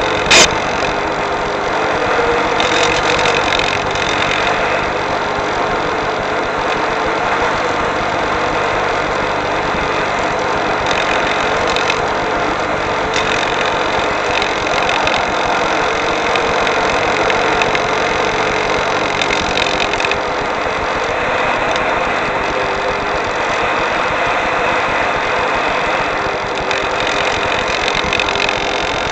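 Electric RC glider in flight, heard from its onboard camera microphone: a steady whirring drone with a hum that wavers slowly in pitch. A sharp click comes about half a second in.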